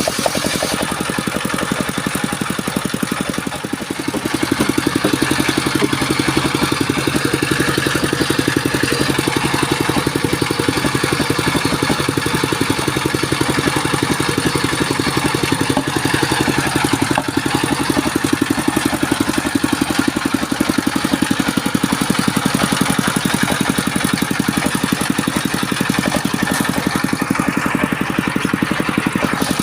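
Engine of a portable engine-driven circular saw rig used for sawing sengon (albasia) timber, running steadily. It gets louder about four seconds in and holds there.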